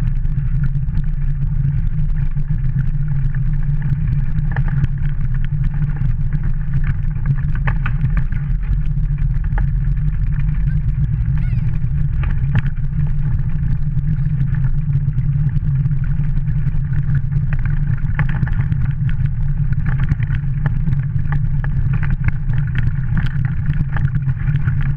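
Wheeled dog kart rolling along a gravel and snow track: a steady low rumble from the wheels and frame, with scattered crunches and clicks.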